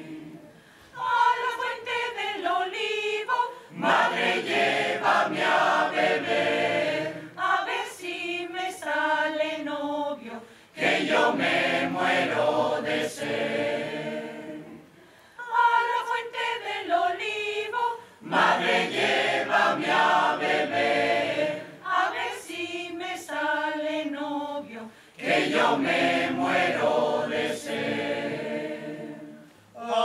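Mixed choir singing a cappella, in sustained chordal phrases separated by short breaks for breath.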